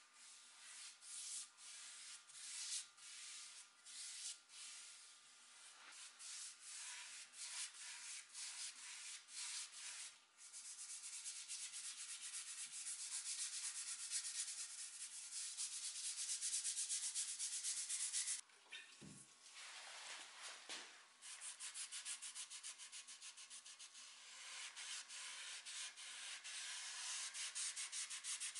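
Paintbrush bristles swishing a dark wood stain onto a bare wooden chair frame. The strokes come slow and separate at first, then turn quick and scrubbing about ten seconds in. After a short pause with a single dull knock, a scouring pad wet with spirit rubs steadily over the stained wood.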